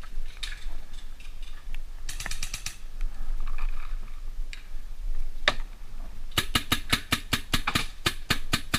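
Paintball markers firing: a short rapid string of shots about two seconds in, a single shot around five and a half seconds, then a long rapid string of about seven shots a second near the end.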